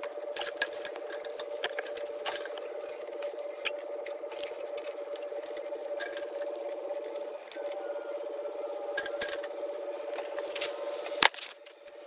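Light metal clinks, taps and scrapes of exhaust downpipes being handled and fitted under a car, with one sharp clank near the end, over a steady hum.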